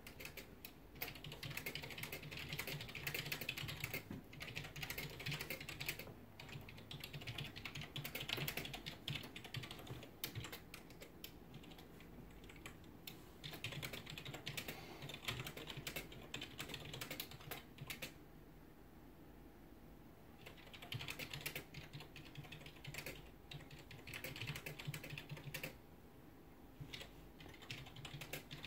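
A kitten grooming at close range: the quick wet clicking of a tongue licking fur, in bouts of a few seconds with short pauses between.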